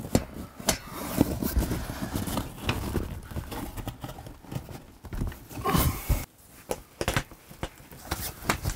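Fabric pop-up hunting blind being popped open and its spreader poles fitted: rustling of fabric with irregular clicks and knocks as the poles are set and locked in place.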